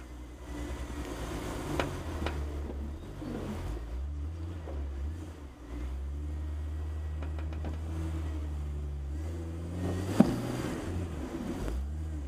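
A Jeep engine running low and steady as the Jeep crawls over the trail. There are a few light clicks, and one sharp knock about ten seconds in.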